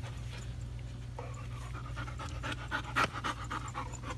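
A Labrador retriever panting in quick, rhythmic breaths that start about a second in, with a single sharp click partway through.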